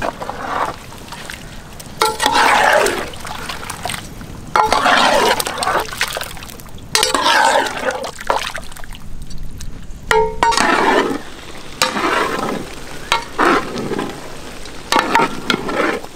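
A long metal ladle stirring soaked rice into watery masala in a large metal pot: wet sloshing, scraping strokes about every two seconds, a few starting with a short metallic clink.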